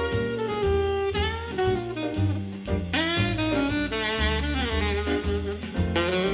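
Jazz with a saxophone lead over a bass line stepping note by note and drums, played back over a high-end stereo system through tall floor-standing loudspeakers.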